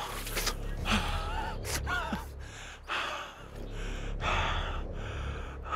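A man gasping and panting hard for breath, with short wavering whimpers about one and two seconds in, then heavy breaths about once a second. A low steady rumble runs underneath.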